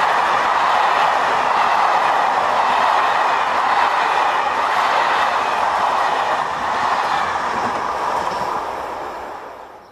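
Passenger coaches of a TER 200 express regional train rolling past on the rails with a steady rushing wheel noise, fading away over the last two seconds as the end of the train goes by.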